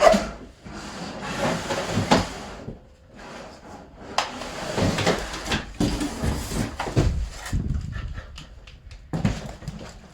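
Cardboard bike box being pulled apart and the packed bike lifted out: repeated rustling, tearing and scraping of cardboard and packaging, with a few short knocks near the end.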